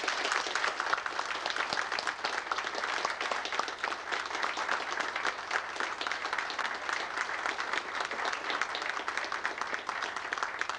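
Audience applauding: sustained clapping from a roomful of people at the close of a talk.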